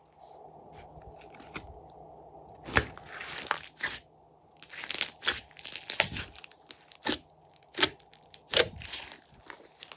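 Slime being squeezed and mixed by hand, making sticky popping and crackling sounds in irregular bursts, mostly through the middle and latter part.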